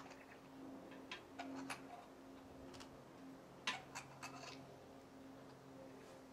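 Irregular sharp clicks from one-handed quick-release bar clamps being squeezed and adjusted on a long glued timber. They come in small clusters, the loudest a little past the middle, over a faint steady low hum.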